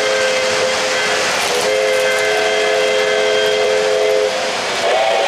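O-gauge model locomotive's onboard sound system blowing a several-note whistle: two long blasts with a brief break between them, then a third starting near the end. Under it runs the steady rolling noise of the passing model freight train on three-rail track.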